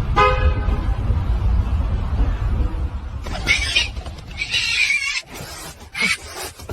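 A vehicle horn gives a short toot over a low engine rumble, which fades out about five seconds in. Several short hissing noises follow from about three seconds in.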